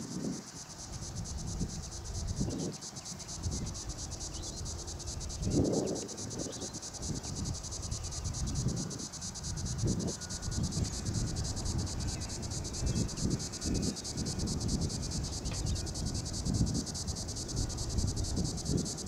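Insects chirring in a steady, high, fast-pulsing trill, with irregular low gusts of wind buffeting the microphone, the strongest about five to six seconds in.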